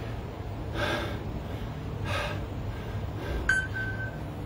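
Heavy breathing of a man recovering between exercise rounds, with two loud breaths about one and two seconds in. Near the end a steady high electronic beep starts, an interval workout timer signalling the next round.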